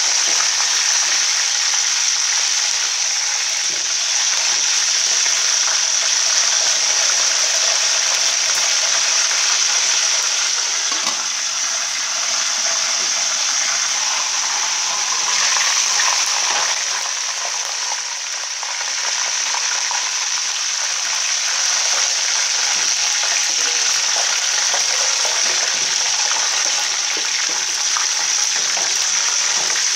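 Hot oil sizzling steadily under a whole chicken frying in a large aluminium pot.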